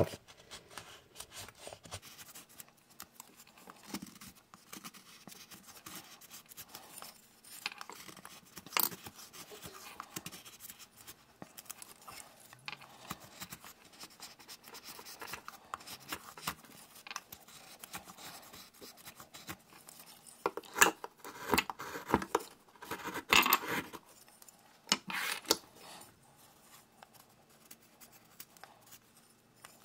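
Carving knife shaving and scraping a wooden spoon blank in short, irregular strokes. The cuts come louder and closer together about two-thirds of the way through.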